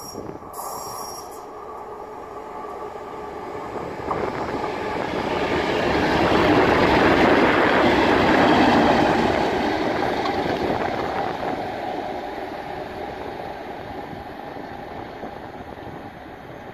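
A pair of Class 37 diesel locomotives, with English Electric V12 engines, running light past without a train. The engine note and wheel noise build up, peak as the locomotives go by about halfway through, then fade as they recede.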